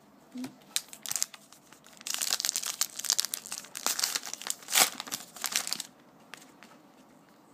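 Trading card pack wrapper crinkling as it is opened and the stack of cards is pulled out, from about two seconds in until about six seconds; a few light taps of cards on a tabletop before it.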